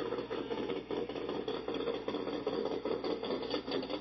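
Corvette V8 engines idling at low speed, a steady exhaust rumble with a rapid, uneven pulse.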